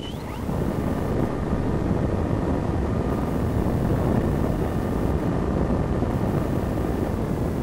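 Steady rushing wind noise on the microphone during the Cularis model glider's FPV flight, growing louder about half a second in and then holding, with a faint steady whine over it.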